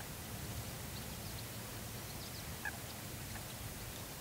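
Quiet open-air background: a steady low rumble with a few faint, short bird calls.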